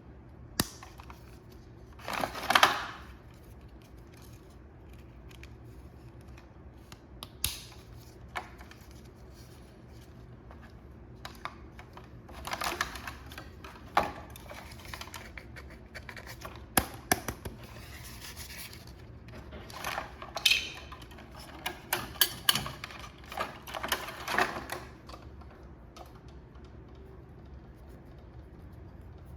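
Hands handling an RC toy car and its packaging: scattered sharp clicks and taps with short scratchy rustles, one loud burst about two seconds in and a busier run of clicks and rustling in the middle and later part.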